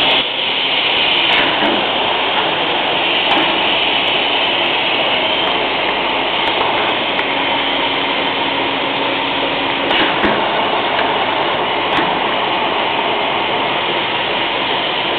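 Paper stacking machine running steadily: a continuous mechanical rush of its motors and conveyor rollers, with a few sharp clicks scattered through it.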